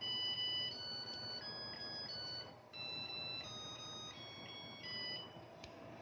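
Zojirushi NP-WT10 rice cooker's electronic buzzer playing its short melody: about nine clear beeping notes that stop about five seconds in.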